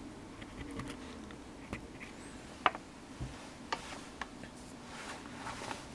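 Faint handling noise of small objects being moved by hand: scattered light clicks and taps, the sharpest a little before halfway, followed by a soft low thump, over a low steady hum.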